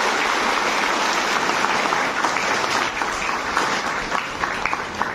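Audience applauding, a dense steady clapping that thins out to scattered separate claps near the end.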